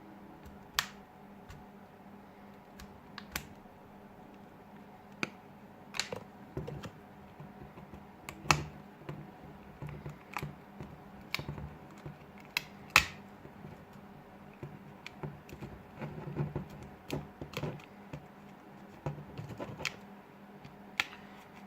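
Irregular sharp clicks and light taps of plastic as the Huawei P8 Lite's back cover is worked loose with a prying tool, over a faint steady hum.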